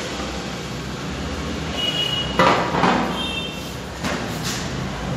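Metal putty knives scraping and knocking against each other and a plastic tub while wall putty is scooped and worked, a few sharp scrapes about halfway through and again near four seconds, over a steady background hiss.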